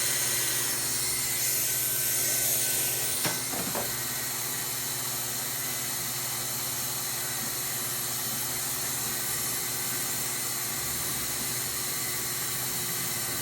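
Steady hiss of a hot-air plastic welding gun blowing, with a single click about three seconds in.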